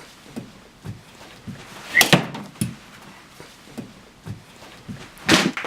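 A few scattered thumps and knocks, the loudest about two seconds in, followed by a louder burst of noise near the end.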